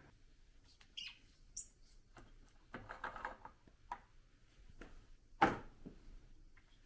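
Scattered light clinks and taps of hand tools on a bare engine block, with a brief high squeak early and a louder knock about five and a half seconds in.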